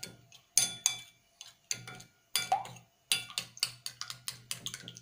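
A metal utensil beating eggs in a glass bowl, clinking against the glass in quick irregular runs of strokes with short pauses between.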